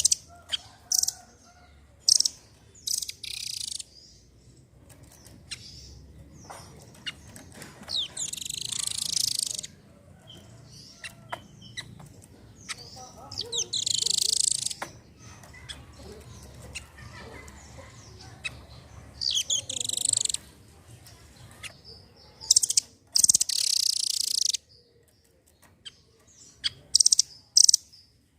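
Velvet-fronted nuthatch (rambatan doraemon) calling: short, sharp, high-pitched chirps scattered throughout, broken by four loud, rapid trilled bursts of a second or two each.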